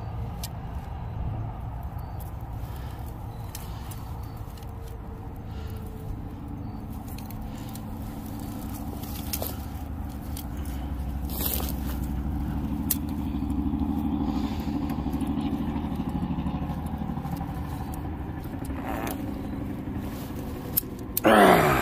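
Handling noise of a 330 Conibear body-gripping trap being forced shut against its springs and set by hand: scraping and rustling with scattered small clicks over a low rumble, louder in the middle, and a short strained vocal sound near the end.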